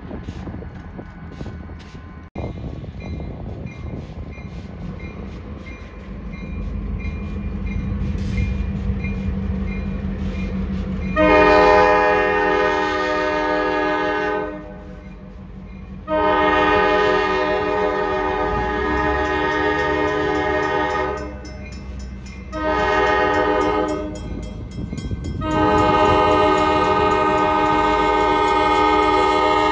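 Diesel freight locomotive drawing near, its engine growing louder, then sounding its horn in the grade-crossing pattern: two long blasts, a short one, and a final long blast.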